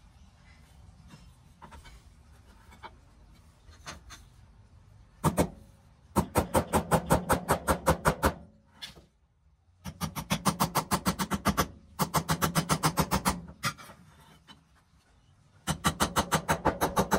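Small hammer tapping a die-cast zinc-alloy toy truck part against a metal block. A few light handling clicks, then one sharper blow about five seconds in, then runs of quick, even taps at about six a second with short pauses between. The hammering is straightening the model's twisted die-cast body.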